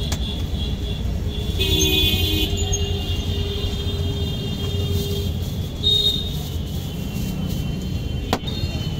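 Road traffic rumbling steadily, with a vehicle horn sounding for about a second near two seconds in and a brief second toot around six seconds. A couple of sharp clicks stand out at the start and near the end.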